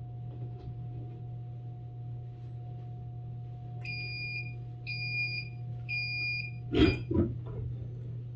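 Heat press timer beeping three times, about a second apart, signalling that the press time is up. About a second later comes a loud clunk and a smaller knock as the press is opened and the upper platen lifts. A low steady hum and a faint steady whine run underneath until the clunk.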